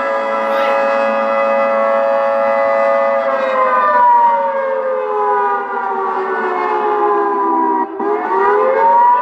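ATI HPSS-32 electronic warning siren sounding the attack signal from a looped recording of a Federal 2T22 blast: a loud chord of several tones holds steady for about three seconds, then slides down in pitch. About eight seconds in it briefly cuts out and winds back up as the recording repeats.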